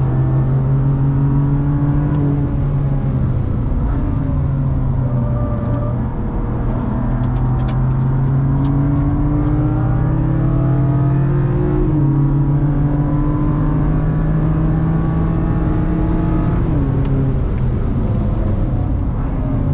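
BMW M2's engine heard from inside the cabin at track speed, over constant tyre and road noise. It pulls steadily up through the revs, drops in pitch at an upshift about twelve seconds in, then winds down as the driver lifts off near the end.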